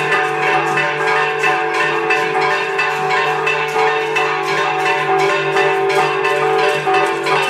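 Church bells pealing rapidly, strokes coming several times a second over their sustained ringing.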